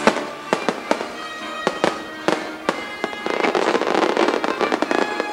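Aerial fireworks shells bursting: about eight sharp bangs over the first three seconds, then a dense crackling as glittering crackle stars go off, over show music.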